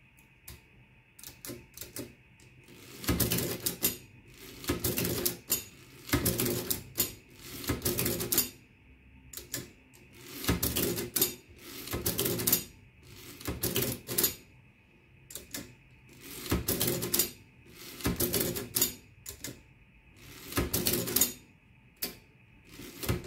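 1960 Olivetti Summa Prima 20 manual printing adding machine, running without its body, cycled over and over by its hand lever during a multiplication. A few light key clicks open it, then about a dozen clattering mechanical strokes of gears and print mechanism follow, each about a second long and about two seconds apart.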